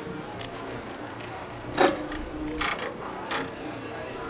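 A few sharp clinks of wire strainer baskets knocking against a steel pot of simmering broth, over steady background noise.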